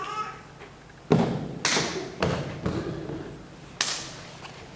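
About five sharp thuds, irregularly spaced about half a second to a second apart, each with a short ringing tail.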